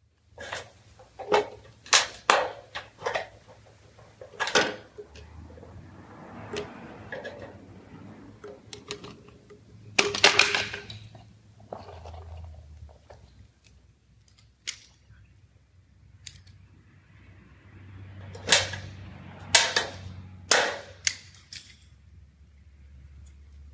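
Hand tools being handled: scattered sharp clicks and knocks as a caulking gun is set down and tools are pulled from a leather tool pouch, with a few louder metallic knocks.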